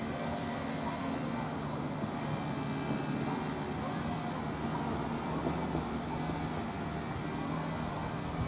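Steady open-air ambience at a football game: distant, indistinct crowd voices over a low hum.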